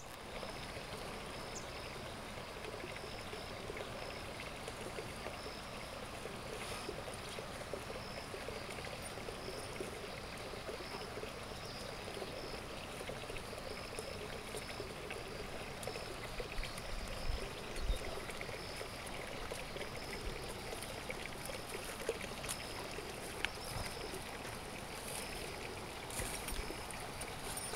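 Steady rushing of a river, with a short high chirp repeating every second or two.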